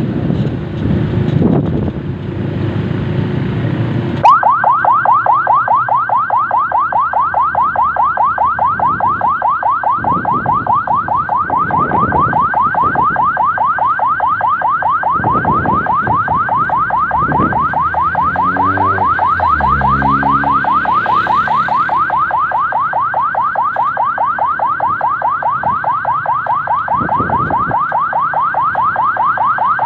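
Vehicle warning siren switched on about four seconds in, sounding a fast repeating rising yelp, several sweeps a second, loud and steady, over wind and road noise from the moving car.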